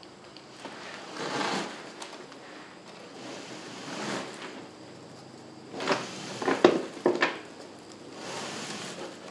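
Plastic wrap and cardboard rustling and crackling in several separate swells as a wrapped engine is hoisted up out of its shipping box, with a few sharp knocks about six to seven seconds in.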